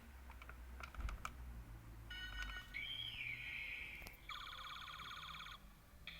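Toy transformation device: a few plastic button clicks, then its small speaker plays electronic sound effects: a short chord of beeps, a falling electronic glide, and a rapidly pulsing buzz that cuts off shortly before the end.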